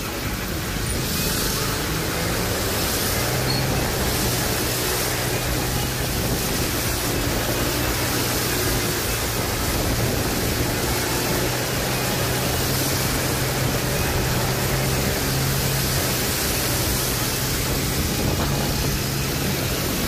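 Steady rushing noise of heavy rain and water spraying from tyres on a flooded road, with a low, steady two-wheeler engine hum starting a few seconds in.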